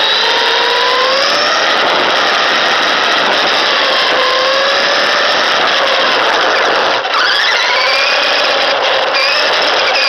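LaTrax Teton RC truck's electric motor and drivetrain whining, heard from a camera on the truck, the pitch rising and falling with the throttle over the rush of its tyres on rough asphalt. About seven seconds in the sound dips briefly and the whine climbs again as it speeds up.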